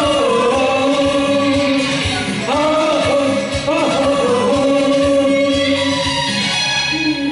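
A man and a woman singing a duet in turn into microphones through a PA, over a recorded karaoke backing track, with long held notes.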